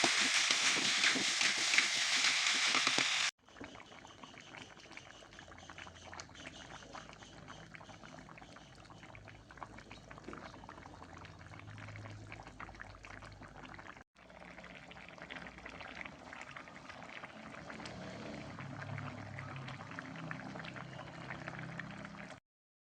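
Meat and shallots cooking in a pan: a loud sizzle for about the first three seconds, then, after a cut, quieter bubbling and crackling of the simmering food that stops short near the end.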